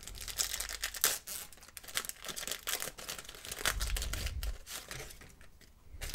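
A 1990/91 Pro Set trading-card pack wrapper being torn open and crinkled by hand: a run of irregular crackles and rips.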